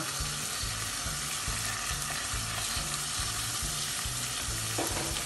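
Curry masala sizzling steadily in a non-stick wok while a wooden spoon stirs in ground tomato.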